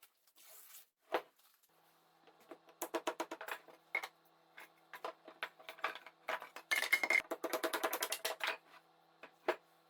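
Rapid, irregular clicks and light knocks of hard parts being handled, as the resin-cast wooden block is taken out of its mould. A faint steady hum sits underneath from about two seconds in.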